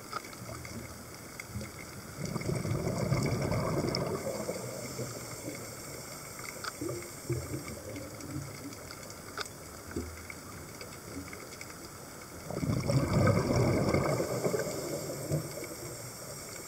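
Underwater recording with two long bursts of bubbling rush, about ten seconds apart: a scuba diver exhaling through the regulator. Between them, a steady hiss with a few faint clicks.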